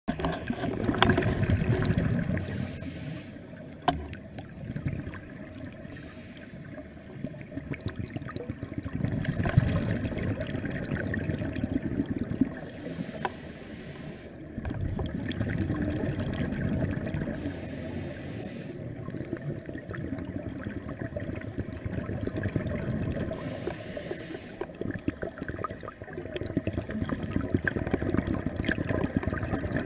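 A scuba diver's regulator breathing, heard underwater through a camera housing: muffled bubbling of exhaled air in stretches of a few seconds, with quieter inhalation gaps between and a few sharp clicks.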